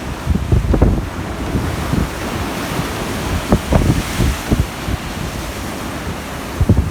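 Strong wind buffeting the microphone in irregular low gusts over a continuous rush of wind and rough sea.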